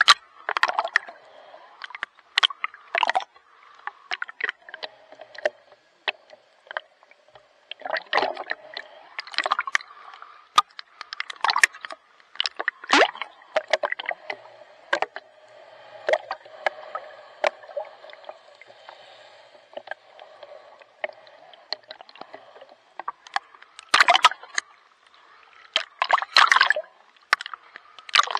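Water splashing and sloshing close to the microphone in irregular strokes, as from someone swimming, with quieter lapping and gurgling between them.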